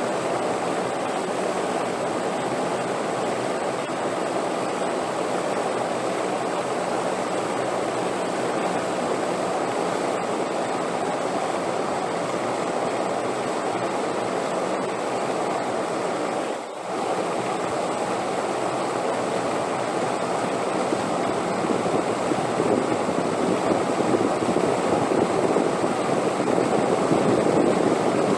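Wind blowing steadily, a dense rushing noise; it dips briefly about two-thirds of the way through and swells a little louder near the end.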